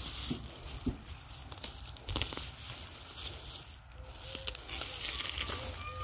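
Rustling and crackling of grass, clover and onion leaves as a hand reaches through the weeds and pulls onions from the soil, with a few soft snaps.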